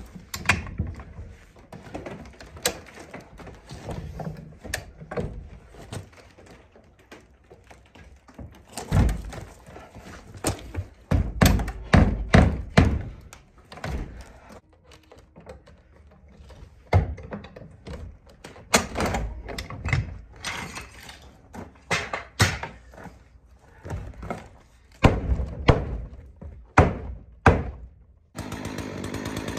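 Sledgehammer blows driving a pressure-treated 6x6 sill into place, heard as clusters of heavy thuds. In the first seconds there are lighter clicks and knocks as a high-lift jack is worked. A chainsaw starts running just before the end.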